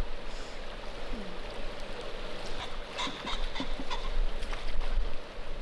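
Outdoor river sound: wind rumbling on the microphone over water swishing around a canoe paddle as it is drawn and then lifted, with a few short animal calls about three to four seconds in.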